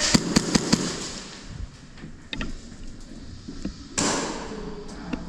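Airsoft guns firing indoors: a quick string of about five sharp shots in the first second, then a few scattered fainter shots, and a short burst of hiss about four seconds in.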